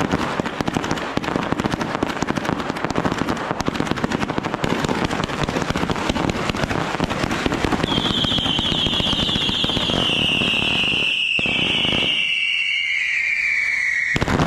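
Firecrackers going off in a long, dense crackling string of rapid small bangs. About halfway through, a high whistle joins and slides slowly down in pitch. The crackling thins out near the end.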